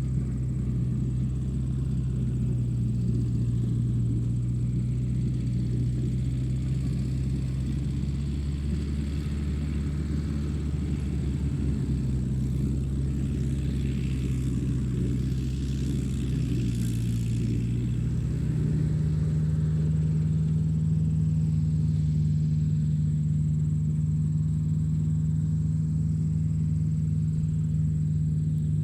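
Radio-controlled construction vehicles running: a steady, low engine-like drone that steps up in pitch about eighteen seconds in.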